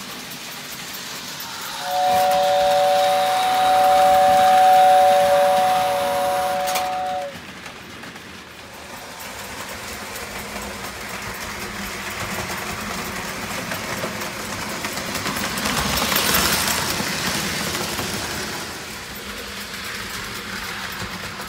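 Lionel 2025 toy steam locomotive running on O gauge track. Its whistle blows one long two-note chord lasting about five seconds, after which only the running noise of the train on the rails carries on, getting louder about three-quarters of the way in as it passes close.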